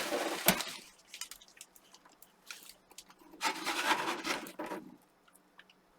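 Rubbing and rustling of handled packing material, in two stretches, one at the start and one a little past the middle, with faint scattered ticks between them.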